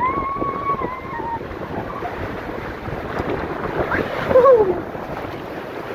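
Water rushing and wind buffeting the microphone as an inner tube slides down a fibreglass water slide. A high, held yell over the first second, and a shorter falling yell about four seconds in.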